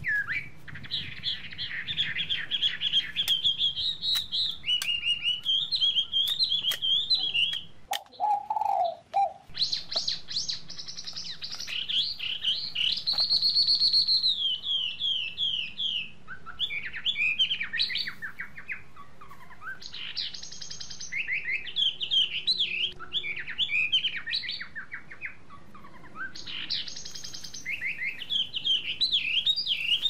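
Small birds chirping busily, many quick high chirps sweeping up and down in pitch, with a short lull about eight seconds in.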